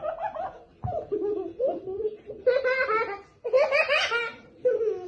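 Laughter in several bouts, the loudest two about two and a half and three and a half seconds in, with a single knock about a second in.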